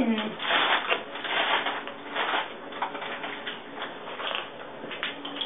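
Rustling and crinkling in irregular bursts, a crackly handling sound, strongest in the first couple of seconds.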